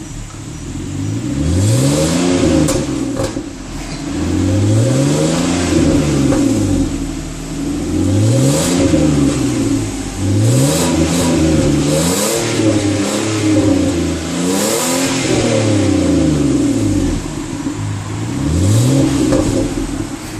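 Peugeot 407 SW 3.0 V6 with its stock valve-controlled exhaust, revved up and back down about seven times, the pitch rising and falling with each rev. Short sharp pops and crackles from the exhaust come in at a few of the revs.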